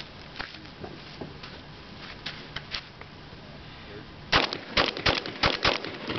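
Mossberg SA-20 Tactical 20-gauge semi-automatic shotgun firing a rapid string of shots, several a second, starting about four seconds in.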